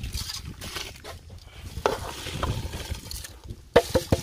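A hand stirring and scooping raw rice in a metal bowl, a soft rustle of grains. Near the end comes a quick run of sharp, ringing metal clinks as the rice is scraped out of the bowl into the cooking pot.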